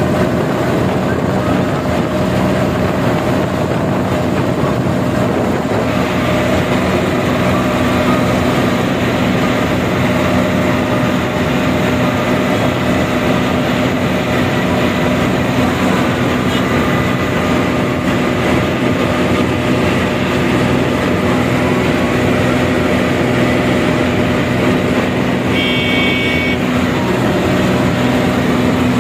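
Tractor engine running steadily at racing speed, heard from the tractor itself, with a brief high-pitched beep near the end.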